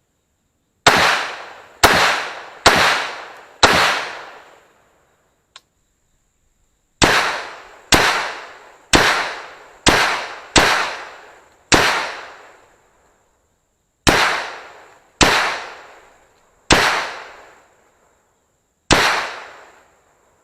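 Bushmaster QRC AR-15 carbine in .223/5.56 firing single semi-automatic shots: fourteen sharp reports in strings of four, six, three and one, spaced about a second apart, each echoing away over a second or so.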